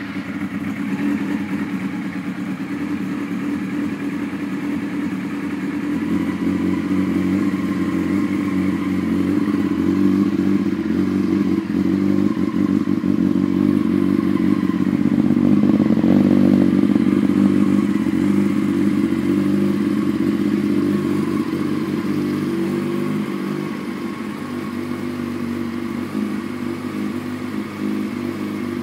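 2001 Yamaha R6's 600 cc inline-four engine idling steadily through a Two Brothers full exhaust. It grows slightly louder toward the middle and eases back a little near the end.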